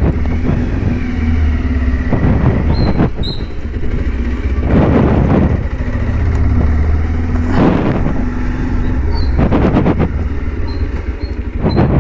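Motorcycle engine running while being ridden, a steady low rumble, with several loud rushing swells about every two to three seconds.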